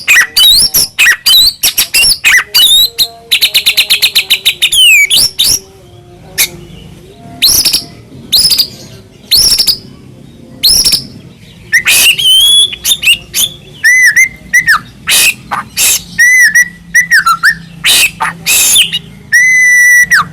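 White-rumped shama (murai batu) singing loudly in full song: a fast, varied string of clear whistles, rapid chattering trills and rising and falling phrases, broken by short pauses.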